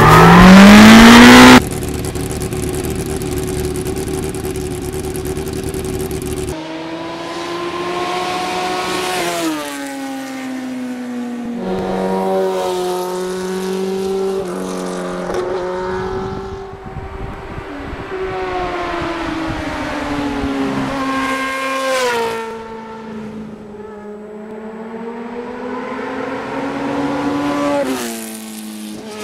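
Motorcycle engine accelerating along a road, its pitch climbing and then dropping at each gear change, several times over, as the bike approaches and rides past. It opens with a short, very loud rising rev.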